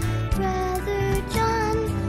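Background music with a melody over a regular beat.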